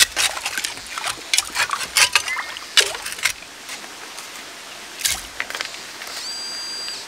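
A hand digging tool scraping and knocking against stones and gravel in a shallow stream bed, a quick run of sharp clacks over the first three seconds and another about five seconds in. Near the end, a metal-detecting pinpointer gives a high, steady alert tone for under a second, the sign that the metal target is close.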